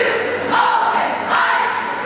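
Cheerleading squad shouting a cheer in unison, drawn-out shouted words over crowd noise.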